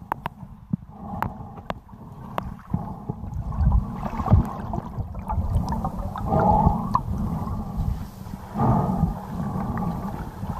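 Underwater sound from a camera submerged in a lake: a low rumble of moving water with scattered clicks, and louder bubbling gushes around six and nine seconds in as a swimmer's bubbles stream past.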